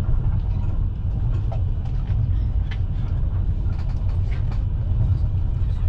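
Passenger train carriage rolling along the track, heard from inside the carriage: a steady low rumble of wheels on rails, with a few faint scattered clicks and rattles.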